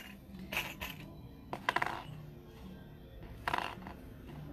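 Small metal ring-frame pendants clicking and clinking against each other and the table as they are handled and set down: a few light clicks, a quick run of ringing metallic clinks about a second and a half in (the loudest), and another clink near the end.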